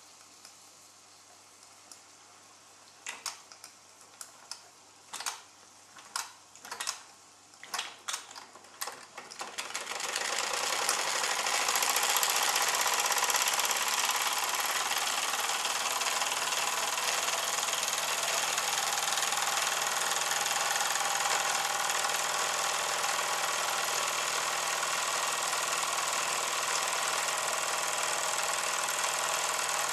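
Wilesco D16 toy live-steam engine starting up. For several seconds it gives irregular spitting pops as steam is let in. From about ten seconds in it runs steadily, with a fast, even hiss of exhaust steam and the clatter of its small moving parts.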